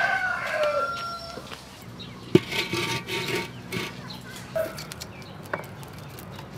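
A rooster crowing once, a drawn-out call that falls slightly in pitch and ends about a second and a half in. A sharp knock follows about two seconds in, then a short stretch of scraping as a large wok on a wood-fired stove is wiped out.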